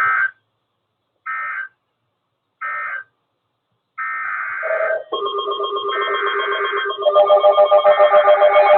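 Emergency Alert System end-of-message signal: three short bursts of digital data tones, evenly spaced about a second and a half apart. From about four seconds in, a longer electronic burst gives way to steady, quickly pulsing electronic tones that grow louder.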